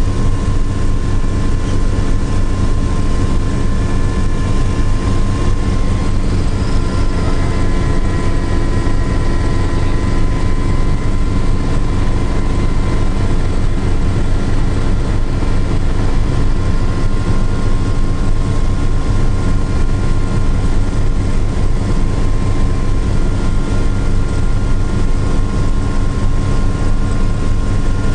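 Helicopter engine and rotor noise heard from inside the cabin in flight: a loud, steady drone with a high turbine whine over it.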